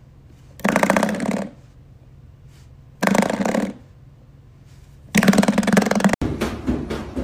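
A duck, poked in the tail, quacks loudly three times, about two seconds apart, each call lasting under a second.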